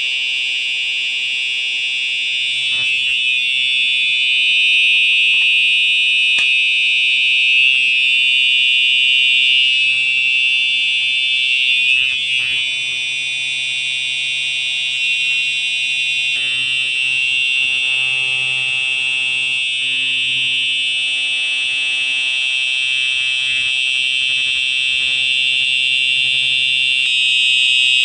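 Home fire alarm system bells ringing continuously during a bell test, a loud steady ring with no pauses whose tone shifts slightly about halfway through and again near the end.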